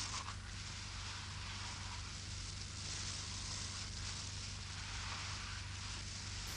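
Steady hiss with a low electrical hum underneath; no distinct sound events.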